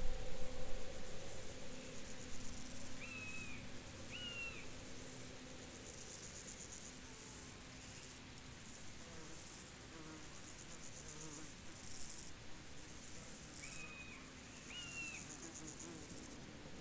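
Insects chirring in a high, rapidly pulsing trill that comes and goes in bouts. A bird gives a pair of short calls about three seconds in and again near the end. A low rumble dies away in the first second or two.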